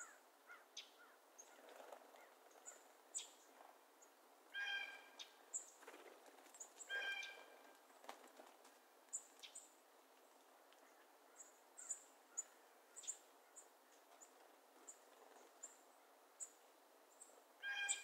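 Several wild birds calling. Many short, high chips and tweets are scattered throughout, and three louder, drawn-out harsh calls come a few seconds apart, the last near the end.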